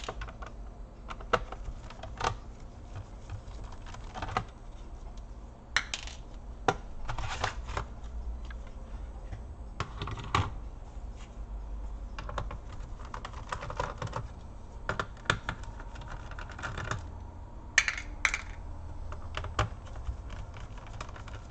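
Irregular small clicks and short rattles of a screwdriver turning small screws out of a laptop's plastic bottom case, with the case and screws being handled, over a steady low hum.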